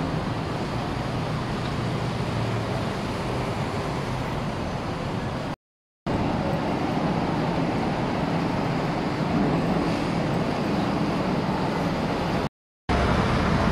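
City street traffic: a steady noise of cars running and passing on the road. The sound drops out to dead silence twice, briefly, where one short clip cuts to the next.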